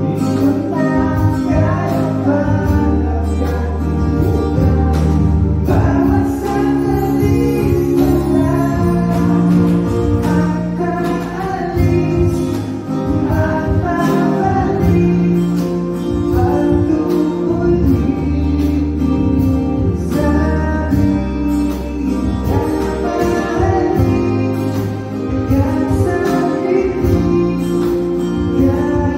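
Live acoustic band playing a song, with a voice singing over sustained bass notes and a steady beat.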